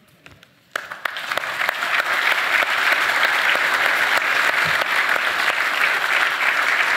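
Audience applauding: clapping breaks out suddenly under a second in, swells over about a second, and goes on as steady, full applause.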